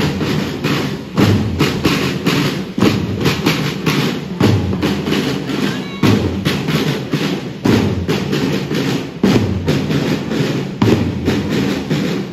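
A group of children playing side drums together in a steady marching rhythm, a dense patter of strokes with a heavy accented beat about every second and a half.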